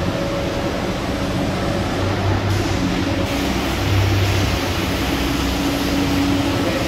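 Strong wind buffeting the microphone: a loud, steady rush with low rumbling surges that come and go every second or two, and a faint steady hum underneath.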